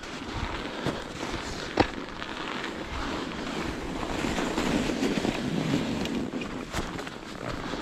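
Schwalbe Ice Spike studded mountain-bike tires rolling and crunching over packed snow, with wind rumbling on the microphone and a few sharp knocks as the bike jolts over the trail.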